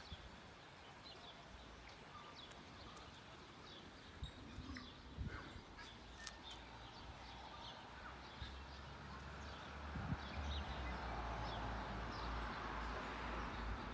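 Faint outdoor ambience of small birds chirping now and then, with a low rumble that swells from about ten seconds in.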